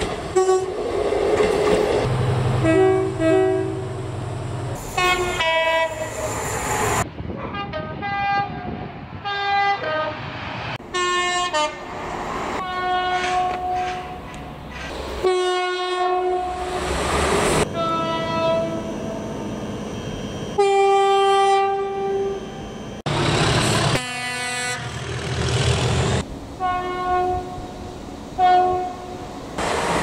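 A run of British train two-tone horns, one train after another: short blasts, often a pair of notes at two different pitches, each clip cut off abruptly, with the rushing noise of passing trains between the horn blasts.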